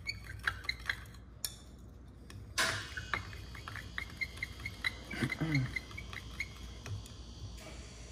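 Metal spoon stirring hot liquid soft-plastic bait mix in a glass measuring cup, clinking against the glass in quick runs of small ringing clicks, one run at the start and another in the middle.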